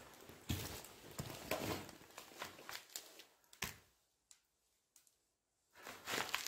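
Rustling and scattered light clicks from things being handled at close range. The noise drops to near silence for a couple of seconds about four seconds in, then picks up again.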